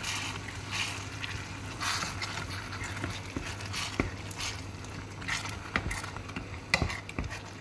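A wooden spoon stirring thick tomato paste into ground beef in a nonstick pan: wet scraping and squelching, with a few short knocks of the spoon against the pan.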